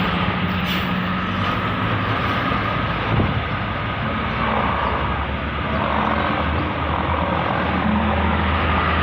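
Road traffic: vehicle engines running with steady road noise, and a low heavy-engine rumble that grows louder in the second half.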